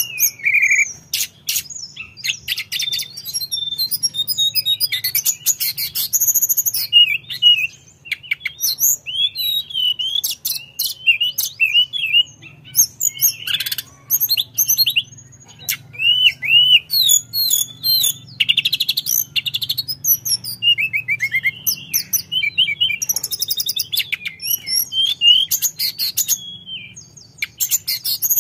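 Caged male tledekan, a Cyornis blue flycatcher, singing its varied song almost without a break. It runs clear whistled sweeps into fast chattering trills and short notes, with only brief pauses between phrases.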